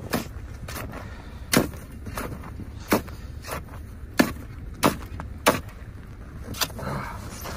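Ice chisel striking and breaking ice in a refrozen hole: about ten sharp chopping blows at a steady pace, roughly one and a half a second.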